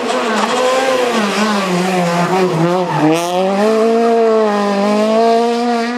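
Peugeot 208 rally car's engine at high revs, its pitch falling as the car slows into a hairpin bend about halfway through, then climbing again as it accelerates out of the turn.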